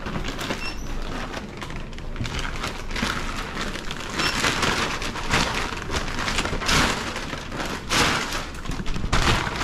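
A reusable nonwoven shopping bag rustling and crinkling as it is shaken open and handled, in a run of loud irregular surges.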